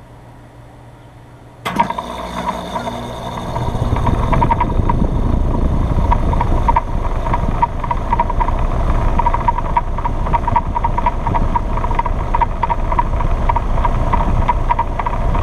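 A 2010 American Standard Heritage 13 four-ton heat pump starting up in heat mode. It kicks on suddenly about a second and a half in, builds up over the next couple of seconds, then runs steadily with a pulsing hum.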